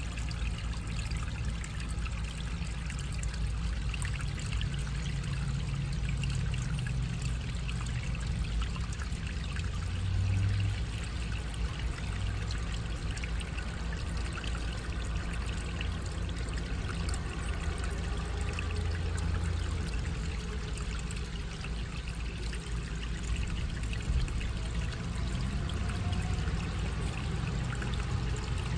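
Shallow water trickling and splashing steadily over gravel through a small concrete culvert, over a low steady rumble.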